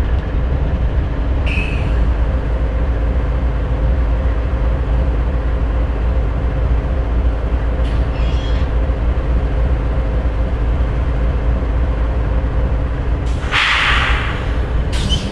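GE diesel-electric locomotives (a Canadian Pacific ES44AC in the lead) idling with a steady low rumble and hum. Brief hisses of air come about 1.5 s and 8 s in, and a louder hiss near the end.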